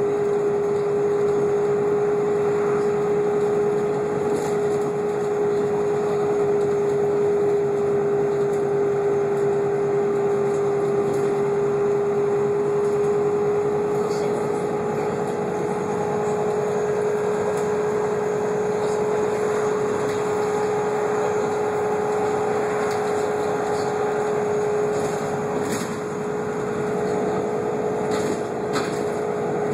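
Irisbus Citélis 12 city bus with a Voith automatic gearbox driving at a steady speed, heard from inside the cabin: a steady drivetrain whine over engine and road noise, with a few small rattles and knocks.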